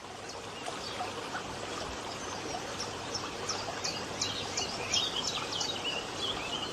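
Woodland birds singing: a run of quick high chirps and trills that grows busier about halfway through, over a steady hiss.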